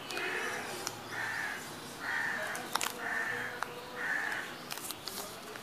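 A bird calling five times, about one call a second, each call harsh and about half a second long. Light clicks of a smartphone being handled are heard between the calls.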